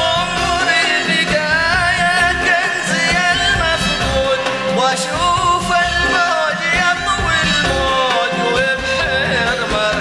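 Arabic song performed live with an orchestra: a male voice sings an ornamented, wavering melody over a full string-led accompaniment.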